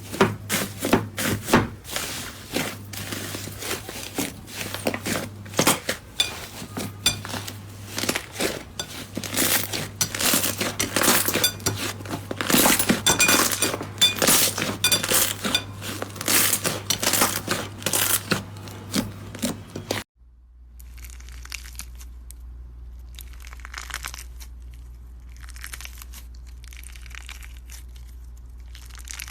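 Slime being handled, squeezed and pressed, with dense crackling and crunching for about twenty seconds. It then turns abruptly quieter, to soft separate squishes every second or two over a low steady hum.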